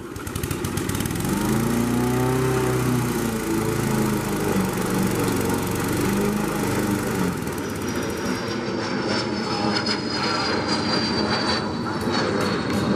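Walk-behind gas lawn mower running while cutting grass, its engine pitch wavering under load. From about eight seconds in, an airplane passing overhead adds a high whine that slowly falls in pitch.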